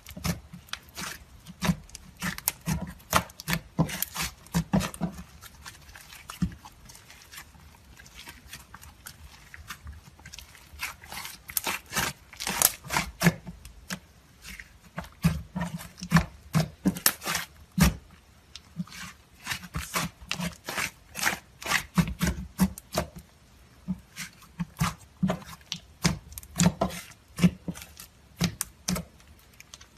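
Slime being squeezed and pressed by hand, making an irregular run of short squelches and sharp clicking pops, several a second at times, with brief lulls.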